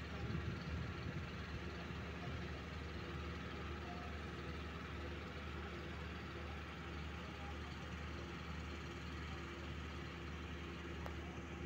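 A steady low machine hum with a few constant tones, unchanging throughout.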